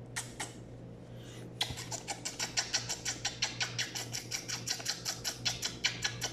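A dog chewing food from a hand: a quick, regular run of wet, crunchy clicks at about five a second, starting about a second and a half in.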